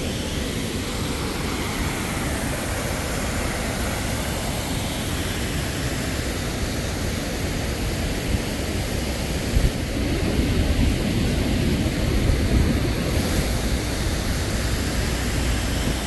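Steady rushing of water pouring over a concrete check dam's man-made waterfall, with a heavier low rumble from about ten seconds in.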